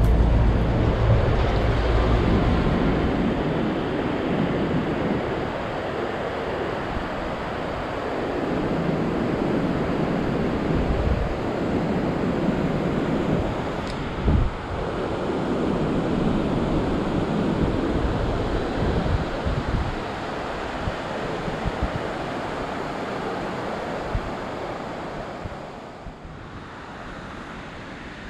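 Ocean surf breaking on a beach, a steady wash of noise that swells and ebbs every few seconds, with wind buffeting the microphone. A short knock about halfway through.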